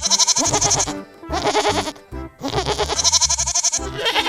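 Goats bleating: three wavering bleats one after another, over background music.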